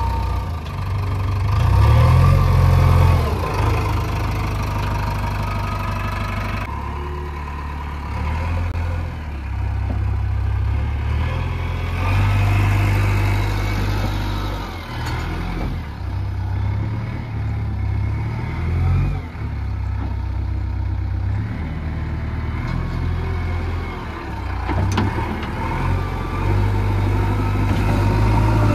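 Diesel engine of a JCB 3DX backhoe loader at work, its revs rising and falling every few seconds as the digging and loading put it under load.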